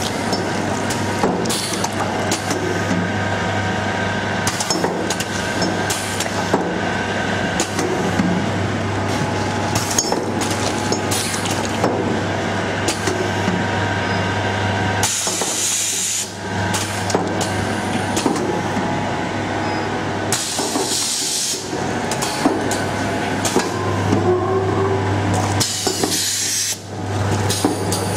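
Cup filling and sealing machine running: a steady hum with frequent mechanical clicks and knocks. In the second half come three hissing bursts of air, each about a second long and roughly five seconds apart, from the machine's pneumatic air lines.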